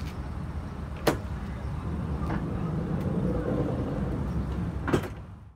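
Loaded BEDSLIDE truck-bed cargo slide being pushed in on its rollers, a steady low rumble, with a sharp click about a second in and another near the end.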